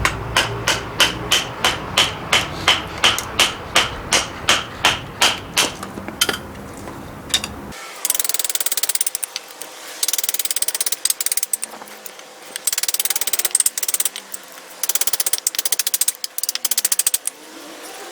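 Hammer blows on metal, evenly spaced at about three a second for some six seconds, each with a short ring. A few seconds later comes a fast rattling in repeated spurts, like a small power tool at work.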